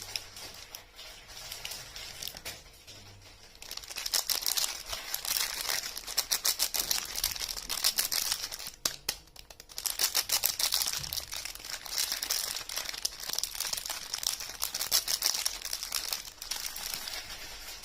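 Soap packaging crinkled and torn open by hand: dense rapid crackling in two long stretches with a pause of about a second between them. It is quieter at the start and near the end.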